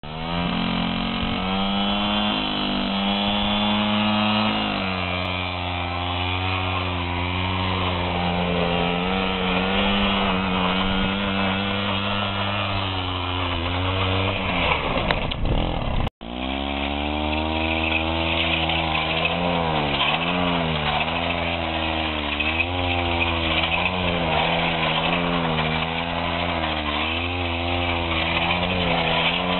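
Piaggio Ciao moped's 49cc two-stroke single-cylinder engine held at high revs for burnouts with the rear wheel spinning, fairly steady at first with a drop in pitch about four seconds in. It cuts off abruptly about sixteen seconds in, then comes back with its pitch rising and falling every second or two as the moped is spun in donuts.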